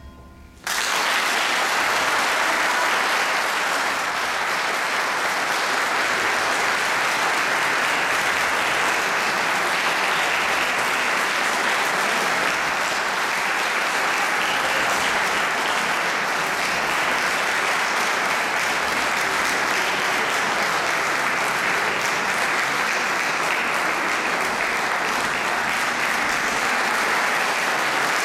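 Concert audience applauding: the clapping starts suddenly under a second in, just after the final note of the music, and keeps up steadily.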